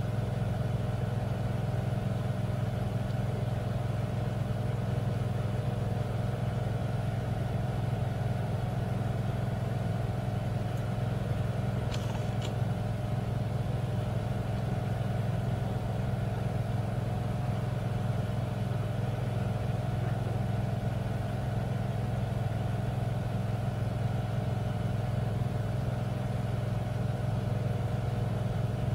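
Heavy truck diesel engines labouring slowly up an icy grade, a low, even drone that holds the same pitch throughout.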